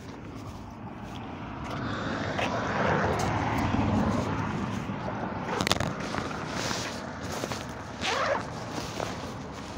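A vehicle going by, growing louder over a few seconds and then easing off, with a sharp click and rubbing from the phone being handled.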